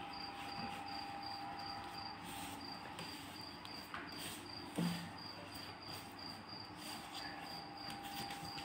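A cricket chirping steadily, about three high chirps a second, over a faint steady hum, with one soft knock about five seconds in.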